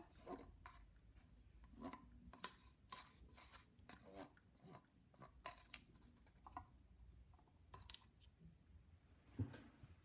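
Near silence, broken by faint scattered scratching and clicking noises, with a soft thump near the end.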